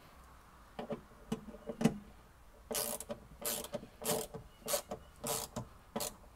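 Socket ratchet turning in the T40 Torx bolts of a tailgate latch striker. A few scattered clicks come first, then the pawl ratchets on each back-swing, about six short strokes a little over half a second apart.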